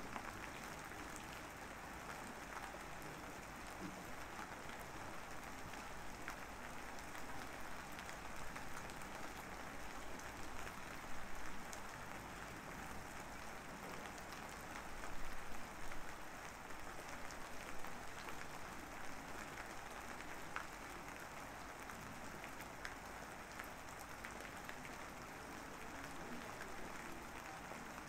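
Steady rain ambience: an even hiss with scattered light patters, a little louder for a moment twice near the middle.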